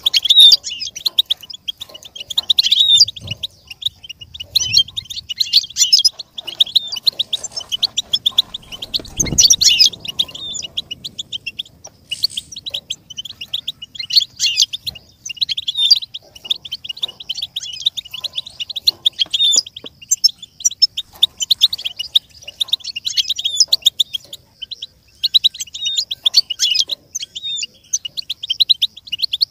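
European goldfinch singing: a long, rapid twittering run of high chirps with only brief pauses.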